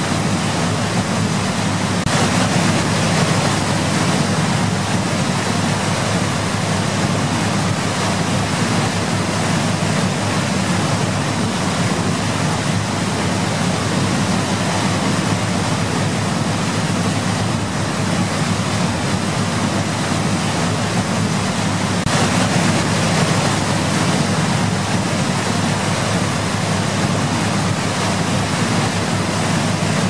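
Waterfall: heavy water pouring down a rock cliff in several streams, a steady, dense rush of falling water with no breaks.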